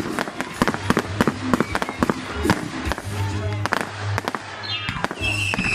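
Fireworks going off in a rapid, irregular string of sharp bangs and crackles, with a whistling firework's falling whistle starting near the end. Music plays underneath.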